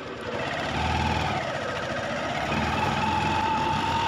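Motorcycle engine running under way: it gets louder and its note climbs about half a second in, dips, then holds a steady pitch for the rest of the ride.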